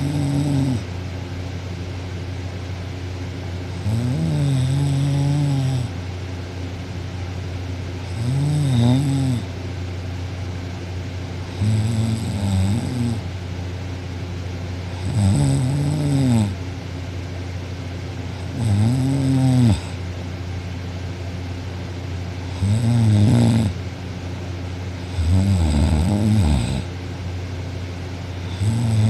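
A young woman lying asleep on her back, snoring loudly. There is one pitched snore on each breath, rising then falling in pitch and lasting a second or two, repeating about every three and a half seconds, eight times.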